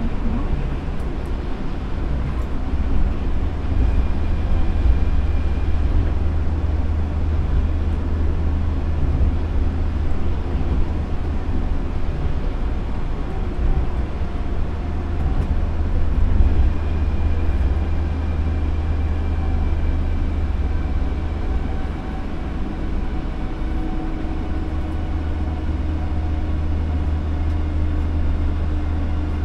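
Osaka Monorail straddle-beam train running along its elevated guideway, heard from inside the front cab. Its rubber tyres make a steady low rumble on the concrete beam, with faint whining tones that come and go.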